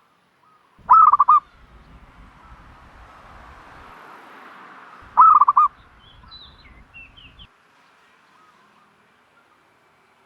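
A dove at its nest giving two loud calls about four seconds apart, each a quick run of about four pulsed notes. A few faint, higher chirps from small birds follow.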